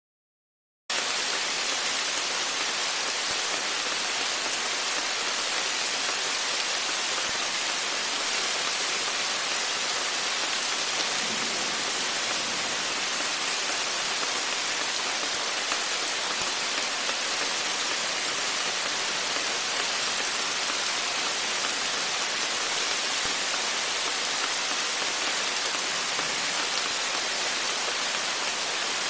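Steady rain falling, an even hiss that starts abruptly about a second in and holds without change.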